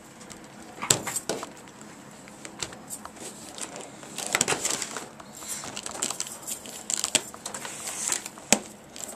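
Handling noise as a laptop and a cardboard shipping box are moved about on a wooden desk: scattered knocks, taps and scrapes, with a sharp knock about a second in and another near the end.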